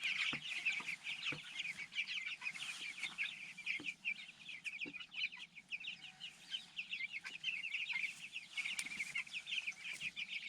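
A flock of three-week-old Cornish Cross meat chicks peeping continuously, a dense chorus of short high peeps overlapping one another, with a few faint knocks.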